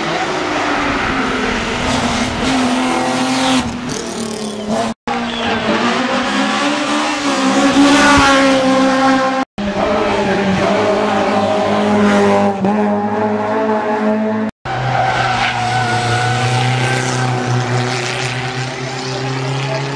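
Rally cars at full throttle on a special stage, engines revving up and dropping back through gear changes. Four short passes follow each other, split by sudden cuts.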